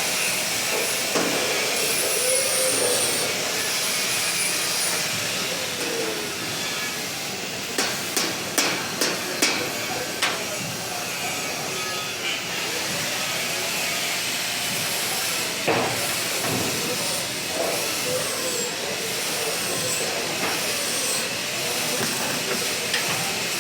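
Steady hiss, with a quick run of five or six sharp knocks of a hammer on steel about a third of the way in and one more knock after the middle.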